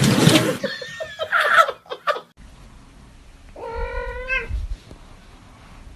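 A domestic cat meows once, a single drawn-out call of about a second near the middle, after a loud harsh burst of noise in the first two seconds.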